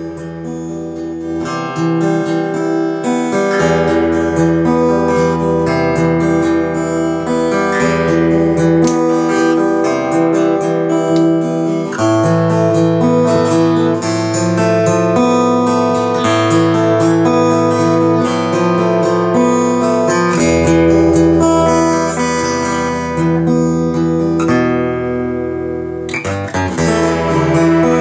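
Acoustic guitar music from a CD, played back through a Dynaco PAS-3 tube preamp, a Dayton DA30 Class D amplifier and a pair of Polk Audio R15 bookshelf speakers, as a listening test of the repaired preamp.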